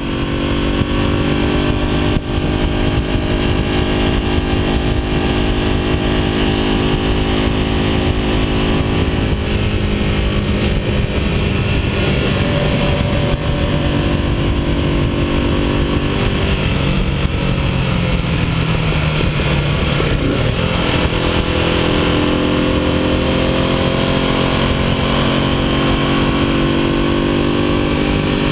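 Vintage motorcycle engine running under way, with a steady rush of wind over it. About two-thirds of the way through the engine note drops and wavers, then climbs again.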